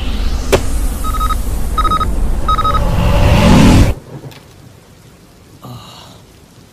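Animated sound effects: a glowing portal's loud rumbling hum, with three short electronic beeps from a small remote-like device over it. A rising whoosh then cuts off suddenly about four seconds in as the portal closes, leaving a quiet background.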